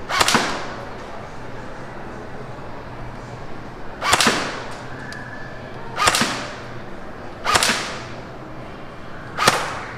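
Airsoft AK-47 rifle firing single shots: five sharp cracks, the first at the start, then one about four seconds in and three more roughly every one and a half to two seconds, each with a short echoing tail.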